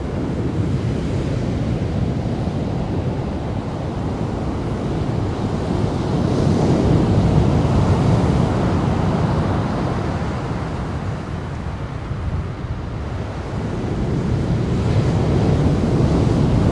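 Ocean surf: waves breaking and washing in, a steady rushing that swells louder around the middle and again near the end, with wind buffeting the microphone.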